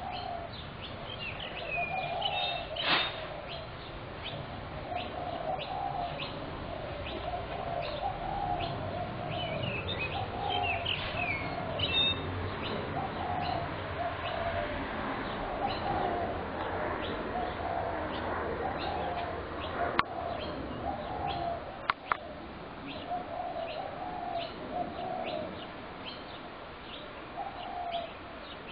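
Spotted doves cooing over and over, phrase after phrase with only short gaps, while small birds chirp higher above them. A few sharp clicks stand out, one about three seconds in and two more past the middle.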